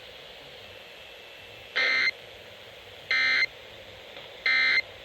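Emergency Alert System end-of-message data bursts over AM radio: three short, identical buzzing digital tone bursts about 1.4 seconds apart, over a steady hiss of radio static. They are the signal that closes the tornado warning broadcast.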